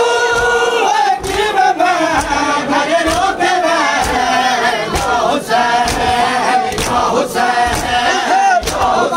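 A crowd of male Shia mourners singing a Muharram lament in unison, punctuated by sharp hand slaps of chest-beating (matam) roughly once or twice a second.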